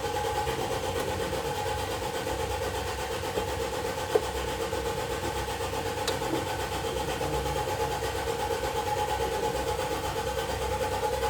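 Fire alarm bell ringing steadily, set off on test through the alarm panel's 24 VDC input. A single sharp click about four seconds in.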